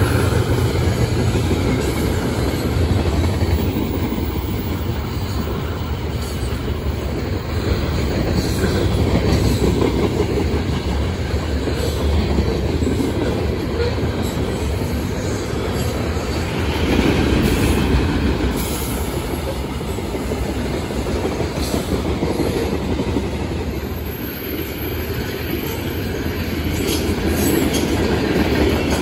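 Freight train cars, covered hoppers and tank cars, rolling past close by: a steady rumble of steel wheels on rail, with clicks from wheels passing over rail joints, more of them near the end.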